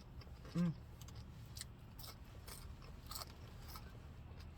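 Close-up chewing of crispy fried breakfast potatoes, with scattered crunches and mouth clicks. About half a second in comes a short hummed voice sound.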